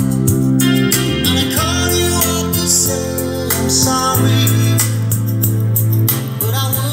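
A song with a singing voice and guitar playing through a pair of vintage 1980s Aiwa three-way speakers with 8-inch woofers, with held bass notes.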